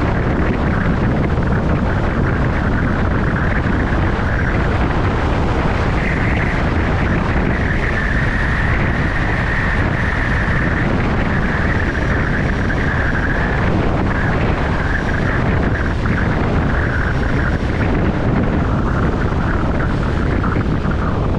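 Steady road and wind noise of a moving car, a continuous rush with no breaks.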